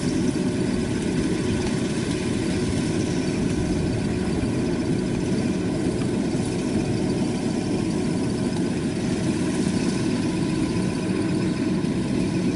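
Kubota DC-93 combine harvester running steadily, its diesel engine and threshing machinery making a continuous low hum while cutting rice.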